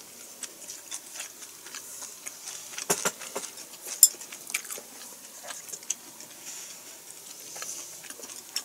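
A person chewing a mouthful of food close to the microphone, with many small wet mouth clicks and a couple of sharper clinks of tableware about three and four seconds in.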